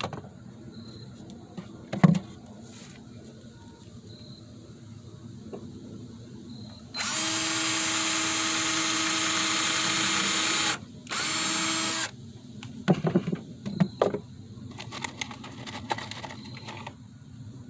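Power drill driving a screw into wood: one steady run of about four seconds, then a second short burst of about a second. A few sharp knocks come before and after it.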